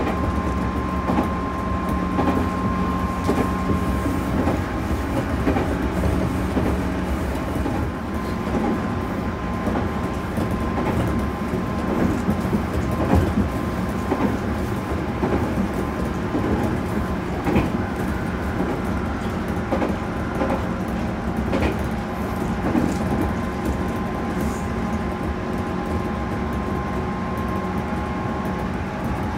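Inside a JR 211 series 5000-subseries electric multiple unit car (KuMoHa 211-5606) running at a steady speed. Its MT61 externally-fanned traction motors hum at a nearly constant pitch over the rumble of the wheels, and the wheels click now and then over the rail joints.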